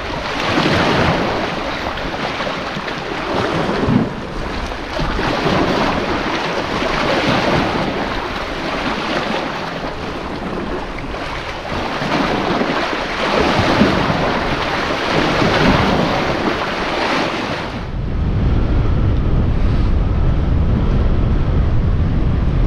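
Small estuary waves washing in over algae-covered rocks, surging and draining in repeated swells a few seconds apart. Near the end this gives way to a steady low rumble of wind on the microphone.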